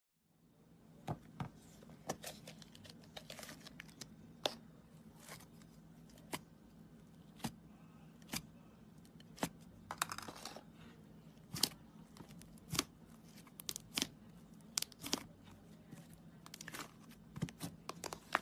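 Slime being pressed and worked by hand, giving irregular sharp clicks and pops, about one or two a second, over a faint steady hum.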